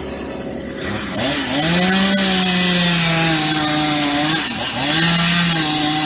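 Chainsaw revving up to full throttle about a second and a half in and running steadily, dropping off briefly once and coming straight back up, as it cuts into eucalyptus wood.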